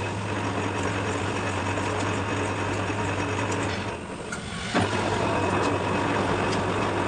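Electric machine motor humming steadily over a grainy hiss. The hum weakens about four seconds in and picks up again with a click just before five seconds.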